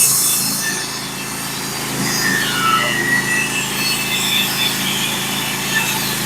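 Band sawmill running steadily under load, its band blade cutting through a white pine log.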